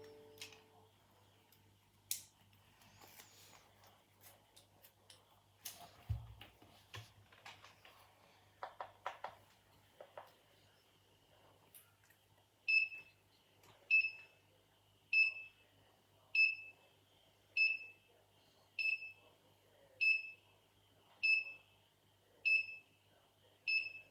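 Scattered clicks and knocks with a low thump about six seconds in. About halfway through, an alarm system's beeper starts sounding short high beeps, one about every 1.2 seconds, ten in all.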